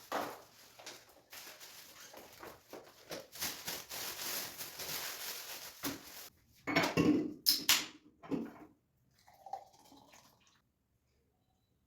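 Kitchen cookware and utensil sounds: a crackling hiss with many small clicks that cuts off suddenly about six seconds in, then a few loud clattering knocks of pans or dishes being handled.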